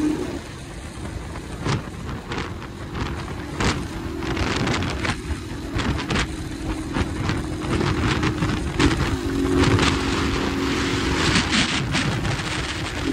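A 150 cc MH Drift motorcycle's engine running at cruising speed, heavily buffeted by wind on the microphone, which covers much of the exhaust sound. The engine hum comes through more strongly about nine seconds in.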